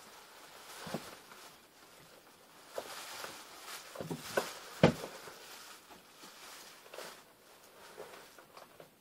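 Scattered soft knocks and rustling of clothing as a person shifts and bumps around in a cramped space, the loudest knock about five seconds in.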